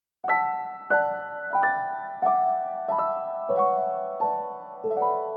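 Background piano music: a slow melody of single struck notes, about one every two-thirds of a second, each ringing and fading before the next. It starts suddenly just after the opening silence.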